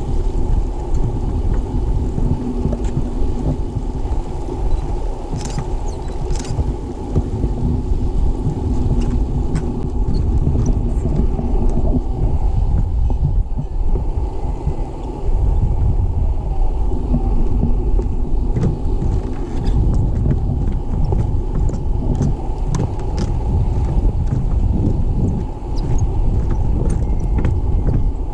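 Wind buffeting the camera microphone: a continuous, gusty low rumble, with a few faint clicks scattered through it.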